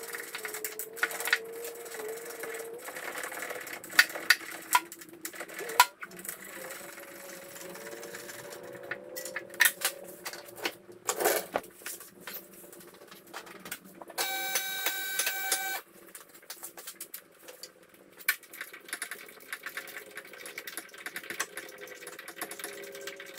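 Irregular metallic clicks and knocks of hand tools working bolts and nuts on a Beetle engine being bolted back to its gearbox. About two-thirds of the way through, a steady buzzy tone sounds for about two seconds.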